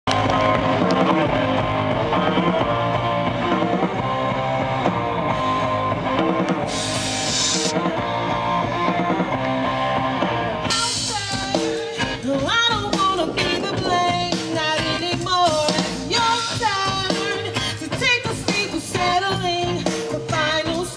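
Live rock band playing through the stage PA: electric guitars, bass, drum kit and keyboard. A lead singer's voice comes in about halfway through.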